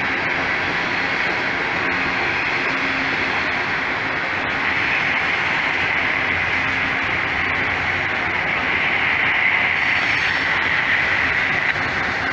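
Freight cars (autoracks and tank cars) of a slow mixed freight train rolling past: a steady noise of steel wheels on the rails, growing a little louder about nine seconds in.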